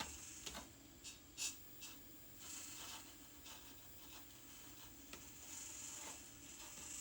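Faint small clicks and light scratching from RC construction models working, over a faint high electric whine that swells and fades twice.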